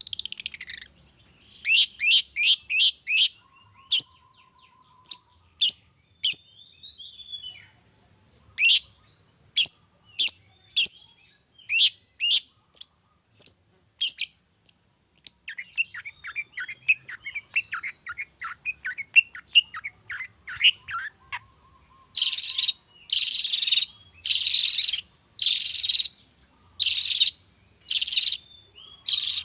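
Long-tailed shrike (cendet) singing. It gives a quick varied series of sharp, high notes, then a fast trill about halfway through. From about two-thirds of the way on it switches to a run of harsh, rasping calls.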